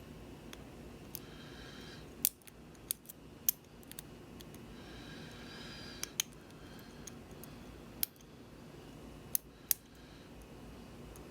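Lock pick and tension wrench working the pins of a Lockwood lock: light metallic clicks at irregular intervals, about a dozen, with faint scraping of the hook in the keyway twice.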